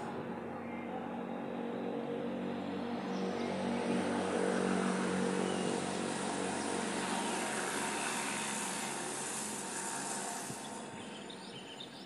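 A motor vehicle passing by: engine and road noise swell about four to five seconds in, then fade away near the end.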